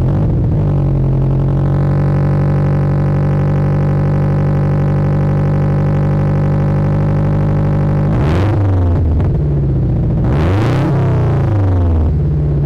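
Scion FR-S flat-four exhaust idling with a steady drone, revved briefly twice, about eight and ten seconds in, each time rising and falling in pitch. This is the car's exhaust before the catless front pipe, with the catted front pipe still fitted.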